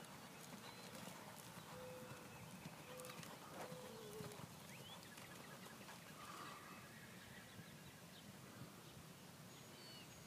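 Faint hoofbeats of a dun American Quarter Horse mare loping on soft arena dirt, slowing to a halt near the end.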